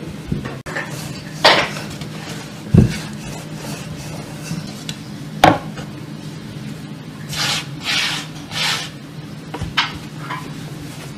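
Long thin wooden rolling pin working a thin sheet of dough on a wooden board: a few sharp knocks of wood on wood in the first half, then several short floury rubbing swishes as the pin is rolled under the hands.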